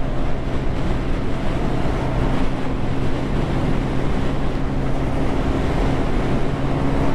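Yamaha Fazer motorcycle engine running at a steady cruise on the highway, its even engine note under heavy wind noise on the microphone.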